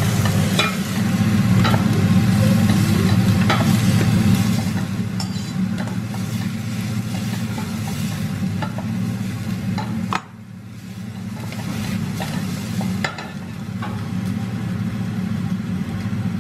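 Diced onion sizzling as it fries in a stainless steel saucepan on a gas hob, stirred and scraped with a wooden spoon, over a steady low hum. The sizzle dips about ten seconds in, then picks up again.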